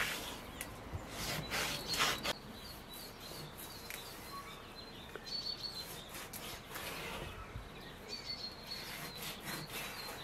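A knife cutting through raw meat on a wooden cutting board: scraping and rubbing strokes, the sharpest ones in the first couple of seconds. Birds chirp now and then with short high calls.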